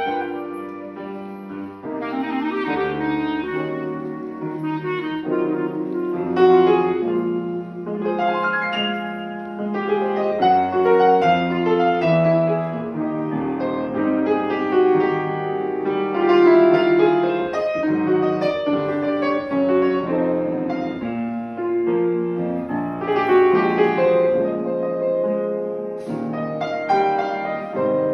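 Instrumental music: a piano with a woodwind, clarinet-like, playing a melody over it.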